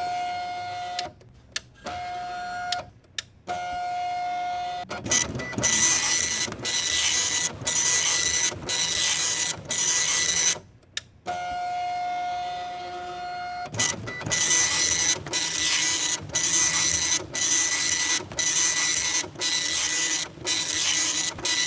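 A printer at work: a whirring motor tone that starts and stops in short runs, then line after line of rasping print strokes, about two a second with brief pauses between them, broken once by another stretch of whirring.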